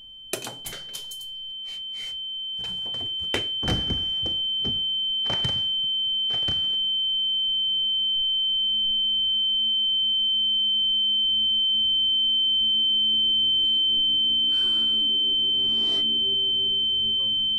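A steady high-pitched ringing tone, the ear-ringing (tinnitus) effect of film sound design, held throughout. Scattered clicks and knocks sound over the first several seconds, and a low hum slowly swells beneath the tone.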